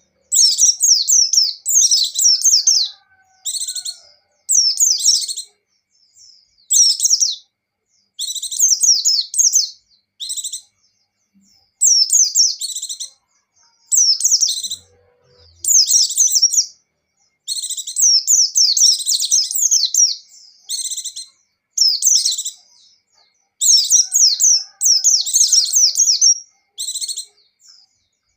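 White-eye (pleci) singing in full voice: rapid, high-pitched twittering phrases of a second or two each, one after another with short gaps.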